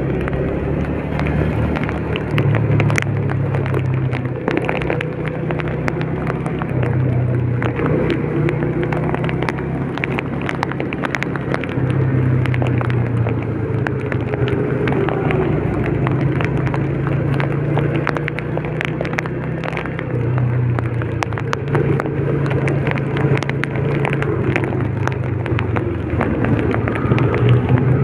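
A road vehicle's engine running in heavy rain, its pitch rising and falling with speed. Raindrops strike the vehicle in many sharp ticks throughout.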